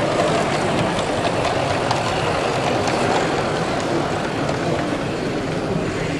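Model train running along the layout track, its wheels ticking faintly over the rail joints, against a steady hubbub of a busy exhibition hall.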